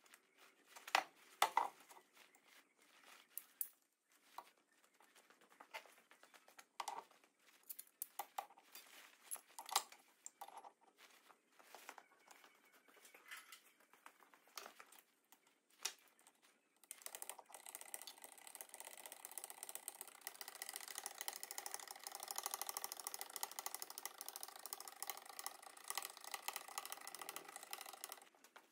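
Scattered metal clinks and knocks as a hydraulic bottle jack and a bronze bush are set in place, then, a little past halfway, a steady fast mechanical ticking and rattling as the jack is worked to press the bush into its bore.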